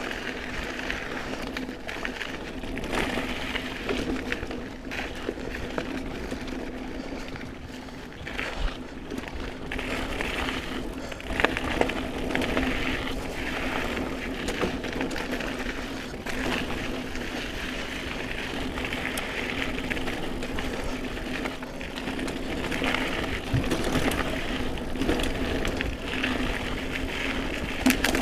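GT Aggressor Pro mountain bike rolling fast over a dirt singletrack: steady tyre and trail noise with a constant low hum, and frequent sharp clicks and knocks as the bike rattles over roots and rocks.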